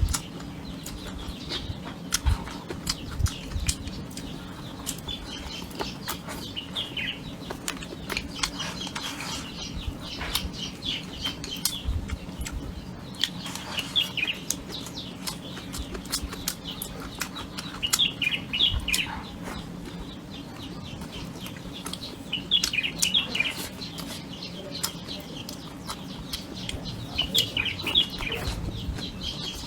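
Birds chirping in short bursts of quick falling calls every few seconds, over many sharp clicks and taps.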